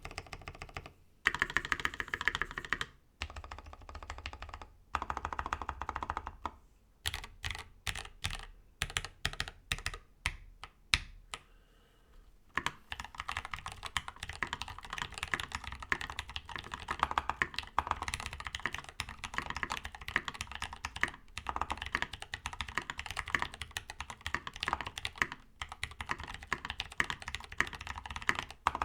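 Mechanical keyboard with factory-lubed Gateron CAP V2 Brown tactile switches on a brass plate with PBT keycaps, being typed on. A few short bursts of typing, then separate single key presses around the middle, then steady fast typing for the rest.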